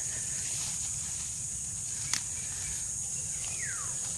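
Steady high-pitched drone of insects, with one sharp click about two seconds in and a short falling whistle near the end.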